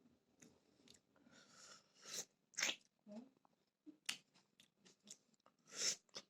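Close-up chewing and biting of raw tomato: faint wet mouth smacks and small clicks, with a few louder smacks about two seconds in, two and a half seconds in and near the end.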